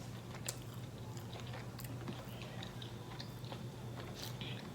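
Close-miked chewing: the small wet clicks and smacks of someone eating, scattered unevenly, over a low steady hum.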